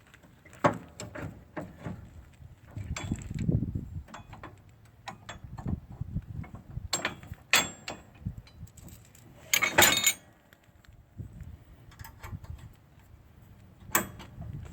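Steel parts of a John Deere sleeve hitch and lift bar clicking and clanking as they are lined up and connected by hand, with a louder metallic rattle about ten seconds in.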